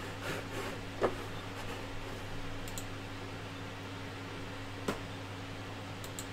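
Quiet room tone: a steady low electrical hum with a few faint clicks, one about a second in and a sharper one near five seconds.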